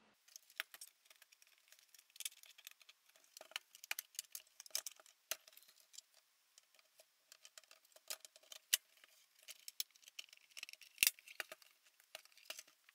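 Light, irregular clicks, taps and scrapes of hands handling and fitting together the HP E3611A bench power supply's metal chassis and cover panels during reassembly, with one sharper click near the end.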